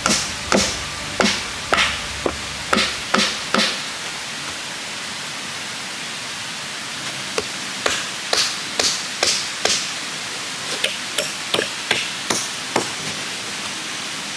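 Machete chopping into a dead log: a run of sharp chops about two a second, a pause of a few seconds, then a second run of chops.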